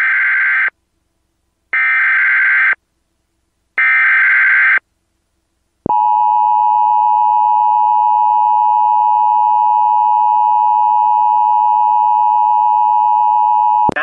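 Emergency Alert System header: three bursts of the SAME digital data screech, each about a second long with a second's pause between, then the two-tone EAS attention signal held steady for about eight seconds. Together they announce a tornado warning.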